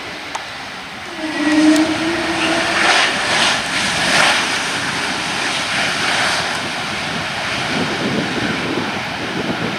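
Airbus A321neo's turbofan engines spooling up about a second in, as in reverse thrust on the landing rollout: a loud jet noise with a brief rising tone at the start, easing to a steadier, lower rumble after about six seconds.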